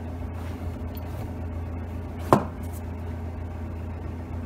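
A single sharp metal knock about two seconds in as a valve-seat grinder pilot is set into an engine cylinder head's valve guide, over a steady low hum.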